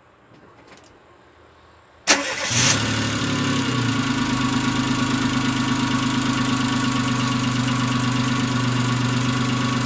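Daewoo Matiz's freshly fitted used replacement engine starting on its first try after the swap, about two seconds in. It cranks briefly, catches almost at once, then settles into a steady idle.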